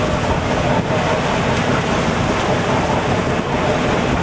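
Wind buffeting the microphone over rough sea, with waves breaking and surging: a loud, steady rushing noise.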